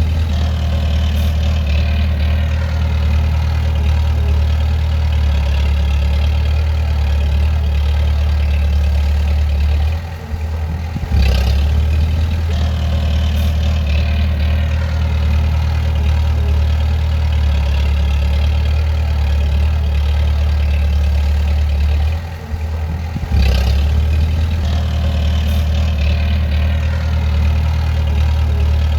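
Bulldozer's diesel engine running steadily under work. It drops off briefly twice, about 10 and 22 seconds in, and picks up again each time.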